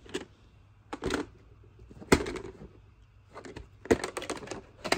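Plastic VHS clamshell cases knocking and clicking as they are handled and set down. There are single knocks about once a second, then a quick run of clicks near the end.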